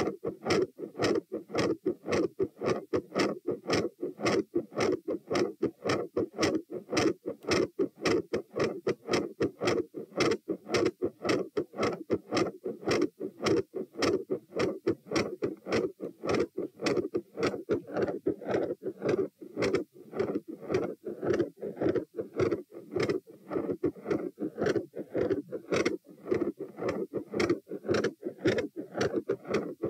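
Heart sounds heard through a stethoscope at the tricuspid area: a quick, regular lub-dub beat, loud and steady throughout.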